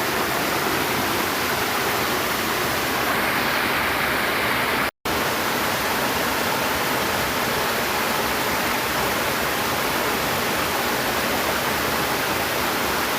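Flowing water rushing steadily, a constant hiss-like noise of a stream. It cuts out completely for a moment about five seconds in.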